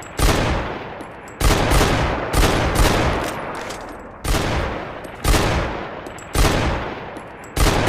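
Desert Eagle pistol firing single shots, about eight in a row at roughly one a second, each shot followed by a long echoing decay.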